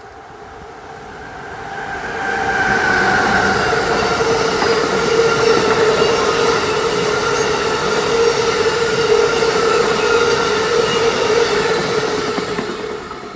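Amtrak Northeast Regional train, an ACS-64 electric locomotive hauling a string of coaches, passing at speed. The rush of wheels on rail builds about two seconds in and holds with a steady tone running through it. It fades as the last car goes by near the end.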